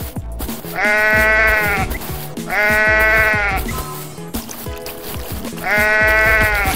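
Sheep bleating three times, each call about a second long and wavering, over background music with a steady beat.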